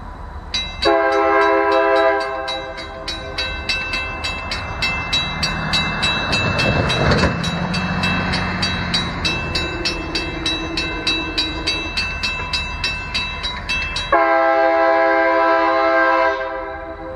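A grade-crossing bell ringing rapidly, about three to four strokes a second, while a freight locomotive's air horn sounds two long blasts, one near the start and one near the end, as the train approaches the crossing.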